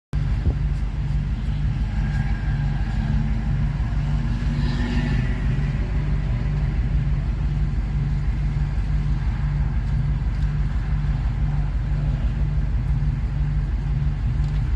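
Strong wind buffeting the microphone as a heavy, steady low rumble, with road traffic passing on a highway behind it.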